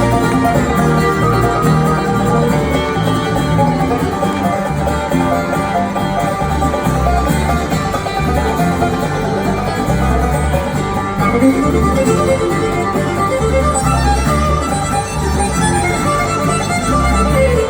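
Bluegrass string-band instrumental, with fiddle and banjo playing over a steady bass.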